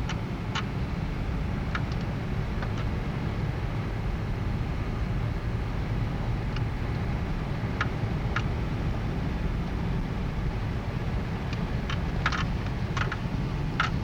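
A steady low rumble with scattered short, faint clicks that come more often near the end.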